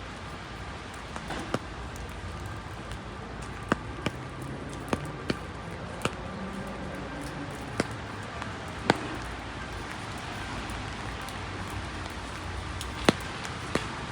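Steady rain hiss, with about ten sharp, irregular taps scattered through it.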